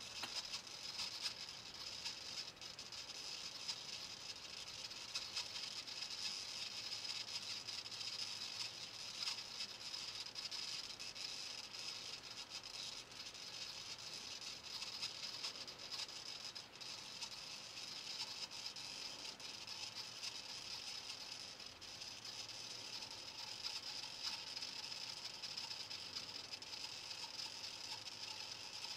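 Faint, steady hiss with a light rapid rattle of tiny clicks: a small hobby servo stepping in 2-degree increments as it pans a Pi camera to follow a laser dot.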